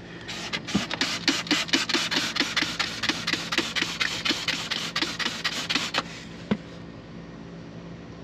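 Trigger spray bottle squeezed rapidly over and over, about five sprays a second, misting soapy water onto a new propane hose fitting to check it for leaks. The spraying stops about six seconds in, followed by a single click.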